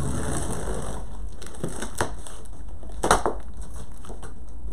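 A blade slitting the packing tape along the seam of a large cardboard shipping box, a grainy scraping rasp in the first second. About three seconds in come a loud sharp crack and a smaller one right after, from the cardboard and tape as the box is worked open.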